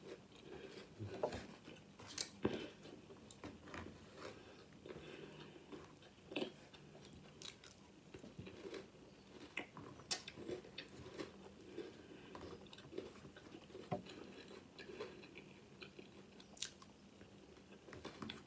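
Faint chewing of a mouthful of crunchy cereal, with irregular crunches and clicks.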